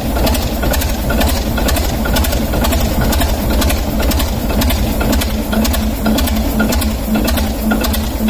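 Six-cylinder diesel locomotive engine idling with its exhaust manifold removed, so the exhaust blows straight out of the open ports. It makes a loud, steady rumble over a regular train of sharp cracks, several a second.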